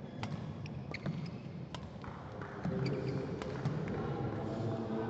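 Badminton rally: a string of sharp racket strikes on the shuttlecock, echoing in a large hall, over a murmur of voices that grows louder from about halfway.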